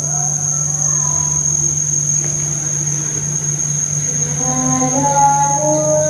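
A field cricket calling in an unbroken, high-pitched trill, with its wings raised. Behind it plays music of slow, gliding, voice-like tones over a low drone.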